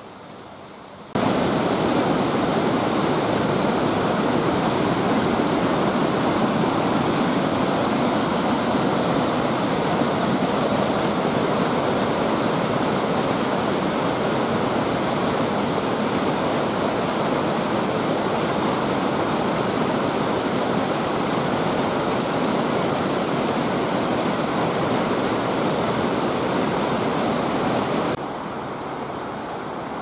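Ryuzu Falls cascade, white water rushing over rocks: a loud, steady rush that starts abruptly about a second in and drops away sharply near the end.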